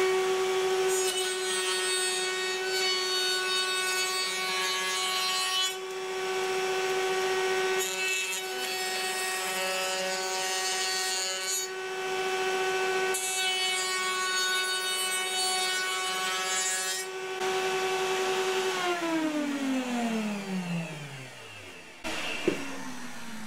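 Router running in a router table, with dust extraction by a vacuum cleaner, making three cutting passes through wood. Its motor then switches off and winds down, the pitch falling steadily. The vacuum pulls the chips away almost completely.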